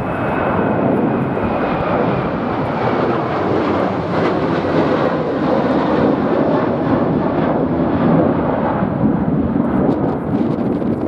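Jet airliner's engines running loud as the aircraft passes close, a steady rush of engine noise with a faint high whine that slides slightly downward in the first few seconds.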